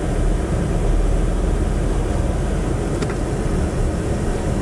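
A 2016 Ford pickup's 2.7-litre EcoBoost V6 running at idle, a steady low rumble heard from inside the cab, with one faint click about three seconds in.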